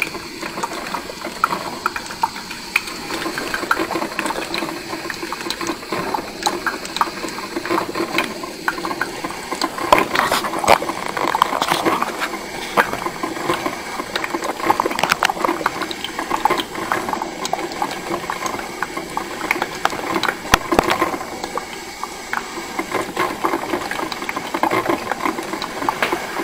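Krups 985 combination coffee and espresso machine brewing, its heater gurgling and sputtering with a steady hiss and many irregular small pops as hot water is pushed through.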